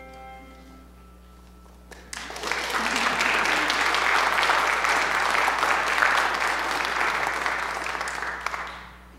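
The last tones of a handbell choir die away. About two seconds in, a congregation starts applauding and keeps on for some seven seconds before fading out near the end.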